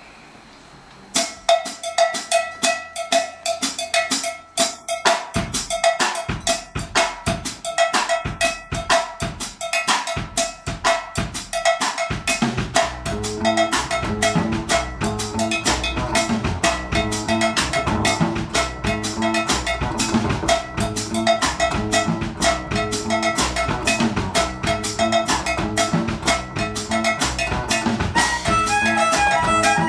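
Drum kit laying down an Afro-Cuban groove alone, starting about a second in, with a steady repeating pattern of bright strokes. A low bass line joins about twelve seconds in, and a fiddle enters near the end.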